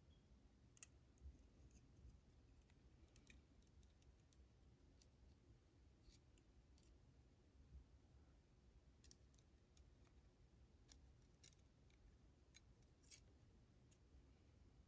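Near silence broken by faint, scattered small clicks of tiny metal lock pins and tools being handled while the driver pins go back into a pin-tumbler padlock.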